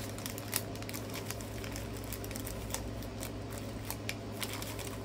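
Scattered light ticks and faint rustling as small plastic zip-lock bags of diamond-painting drills are handled on a tabletop, over a steady low hum.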